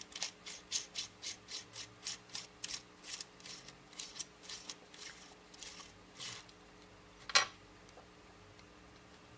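Threaded stainless-steel end cap of an electric screwdriver being unscrewed by hand: short metal-on-metal rasps of the threads, about three a second, slowing and fading, then a single sharper click about a second after they stop.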